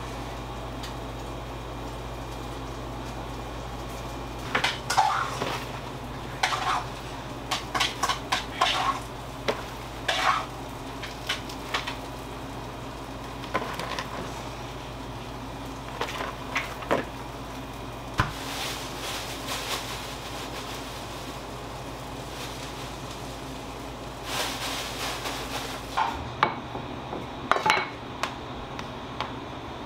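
Metal utensils and trays clinking and clattering during bakery prep work, in scattered clusters, over a steady low hum.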